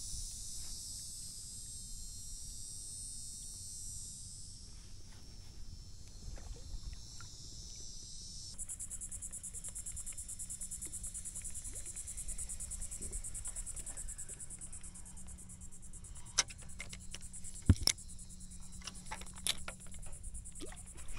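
Insects chirring steadily in a fast, high-pitched pulsing drone, with a few sharp clicks near the end.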